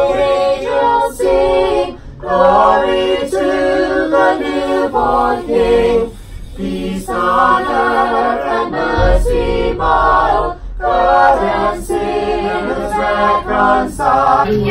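Unaccompanied singing: a melody sung live in short phrases of held notes with brief breaks between them.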